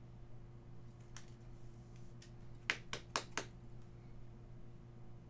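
Handling of a trading card in a clear rigid plastic toploader: one sharp plastic click, then four quick clicks and taps close together about halfway through, over a faint steady low hum.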